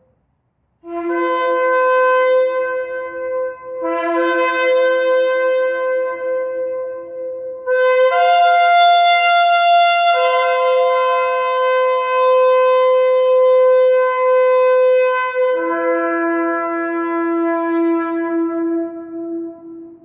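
Shofar sounding long held blasts that step between a low and a higher note. A brief silence at the start, then two blasts of about three seconds each, then one long blast that jumps to a higher note, settles back, and drops to a low note near the end.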